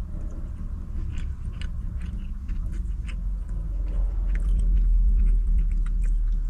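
A person chewing a soft gulab jamun close to the microphone, with small wet mouth clicks, over a low rumble that grows louder a little past the middle.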